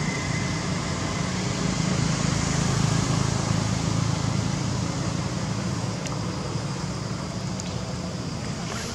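Steady low outdoor rumble, like wind or distant traffic, swelling a little a few seconds in, with a few faint clicks near the end.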